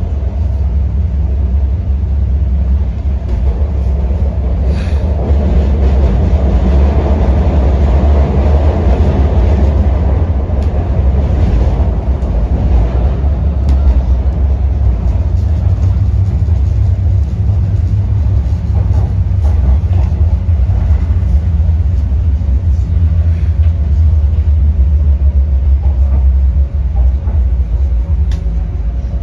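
Deep, steady rumble of an MTR CNR Changchun electric multiple unit running through a tunnel, heard from inside the passenger car. A faint steady whine comes in near the end as the train reaches a platform.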